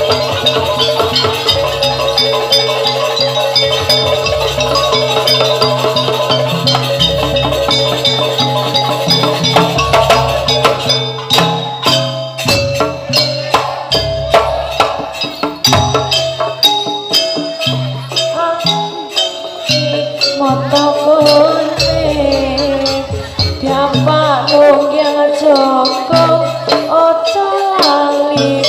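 East Javanese jaranan ensemble playing: drums, gongs and ringing metal percussion with a steady beat. After about ten seconds the music becomes more drum-driven, and a bending melody line comes in near the end.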